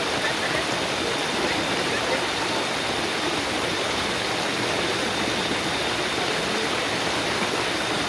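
Steady rushing of a rocky jungle stream below a waterfall, water pouring over stone, with a faint steady high tone above it.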